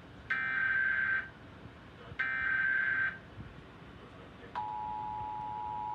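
Emergency Alert System header and attention signal: two short stretches of the SAME digital header's buzzy data tones, each just under a second and about a second apart. About a second and a half after the second one, the steady two-tone EAS attention signal (853 Hz and 960 Hz together) begins and holds.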